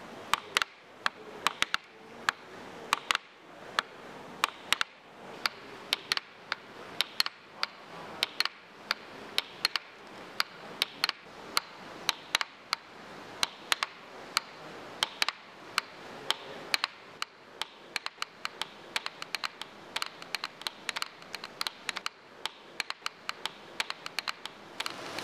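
Wooden hammer mechanism clacking: a row of wooden hammers knocking in a quick, uneven run of sharp knocks, several a second, over a low hiss.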